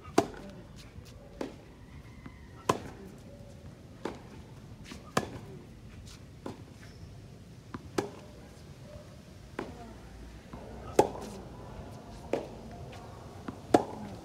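Tennis ball struck back and forth by rackets in a baseline rally: a sharp pop about every 1.3 seconds, the near player's strokes the loudest.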